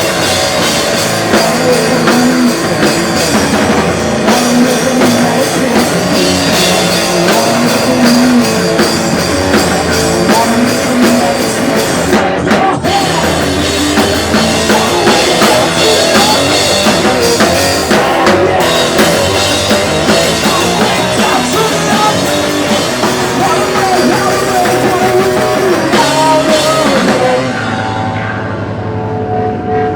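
Loud live rock band playing: a drum kit with crashing cymbals and distorted electric guitars. The playing stops about 27 seconds in, leaving steady ringing tones from the amps.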